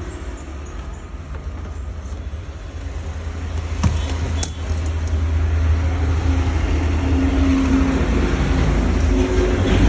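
Low, steady rumble of a moving vehicle, growing louder about four seconds in, with a single sharp click near that point.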